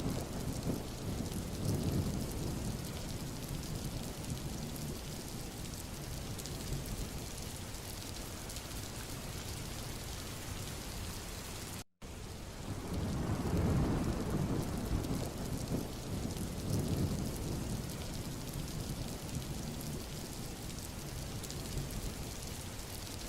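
Steady rainfall with low rolling rumbles of thunder that swell near the start and again a little past halfway. The sound cuts out completely for a moment about halfway through, then resumes.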